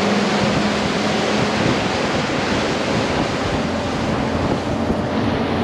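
Fishing boat running across open water: a steady rush of wind on the microphone and water along the hull, with the low, even drone of the boat's engine underneath.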